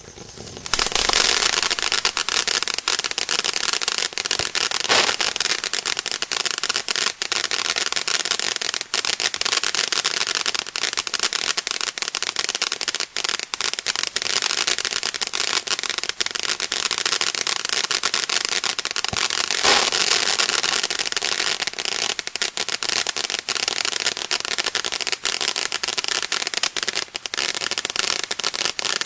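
Winda 'Bad Boys' firework fountain spraying sparks from the ground, a steady hiss thick with rapid crackling that starts about half a second in and keeps going without a break.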